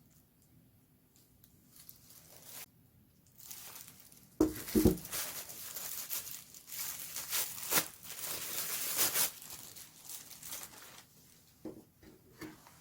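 Packaging of a new phone being torn and crinkled, starting about four seconds in and going on for about seven seconds. A few light clicks and taps come before and after it.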